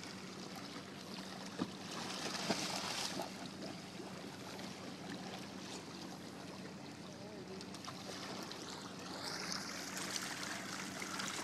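Water splashing and sloshing against a boat's hull as a large tarpon is held alongside to revive it, over a steady low hum. Two short knocks come in the first three seconds, and the splashing swells twice.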